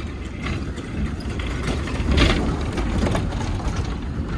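Wind rumbling on the microphone outdoors, with a few brief knocks or rustles, the loudest about two seconds in.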